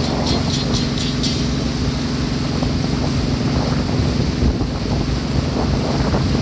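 Small motorboat's engine running steadily at speed, with the wake's water rushing and wind buffeting the microphone. A quick run of high ticks sounds in the first second or so.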